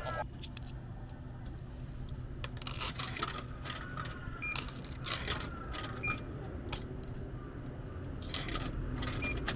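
Coins clinking in the hand and being pushed one by one into a drink vending machine's coin slot, each dropping into the coin mechanism with a metallic clatter. There are three main bursts of clinking, about three, five and eight and a half seconds in, over a steady low hum.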